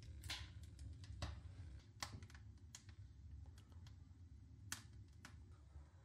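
Firewood crackling as it burns in the firebox of a Technolit Avangard P2 Uragan wood-burning sauna stove: faint, scattered sharp snaps at irregular intervals over a low steady hum.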